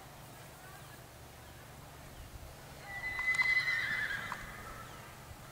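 A horse whinnying once, about three seconds in: a loud, high call lasting about a second and a half that wavers and then falls away.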